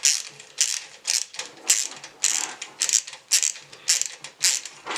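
Hand screwdriver working screws out of a desktop PC case's graphics-card bracket, a short grinding click with each turn, about two a second.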